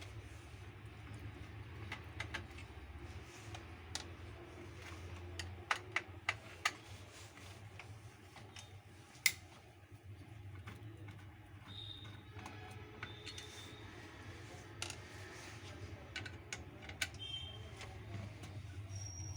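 Scattered light clicks and taps, a few in quick succession about six seconds in and a sharper one about nine seconds in, over a steady low hum, with a few brief faint high squeaks later on.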